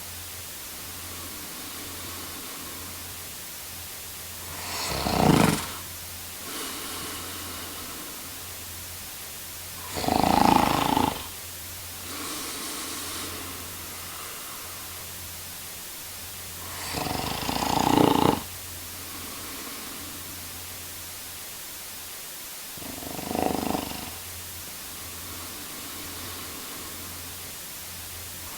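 A man snoring in a slow, regular rhythm: four loud snores about six seconds apart, with softer breaths in between.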